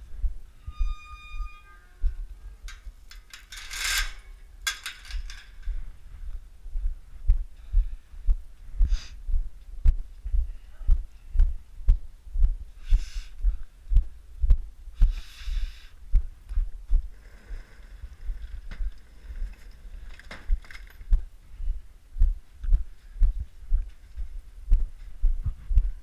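Walking footsteps, a low thud about twice a second, as someone walks through snow and into a barn. A short high squeak comes in the first two seconds, and a few louder rustles and scrapes come along the way, the loudest about four seconds in.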